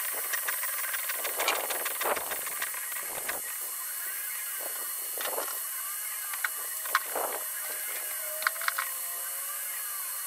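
CNC gantry stepper motors whining in short rising-and-falling sweeps as they move a 6-watt diode laser head through an engraving on spray-coated stainless steel, over a steady hiss, with scattered sharp ticks clustered in the first few seconds.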